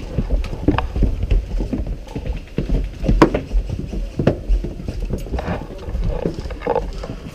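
Irregular knocks and clicks from airsoft gear and rifle handling close to a body-worn camera, over a constant low rumble, with a few sharper knocks about three and four seconds in.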